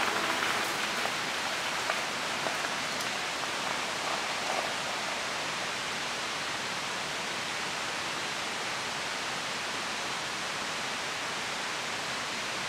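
Steady, even hiss of outdoor ambience, with a few faint ticks in the first few seconds.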